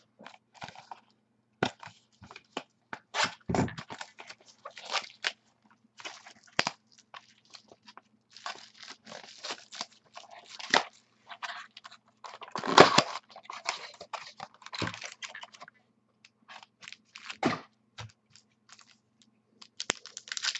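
Trading card pack wrappers being torn open and crinkled, with cards scraping and clicking as they are handled. The irregular crackling comes and goes in clusters and is loudest about two-thirds of the way through, over a faint steady hum.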